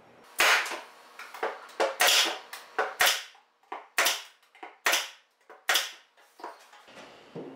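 A string of sharp knocks, roughly two or three a second at an uneven pace, each with a short ringing tail.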